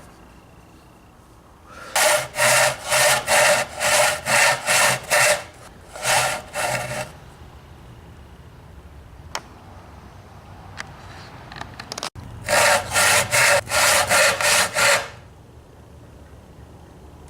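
Hand saw cutting through a walnut board in quick back-and-forth strokes, about three a second, in three runs with short pauses between them and a few light clicks in the longer pause.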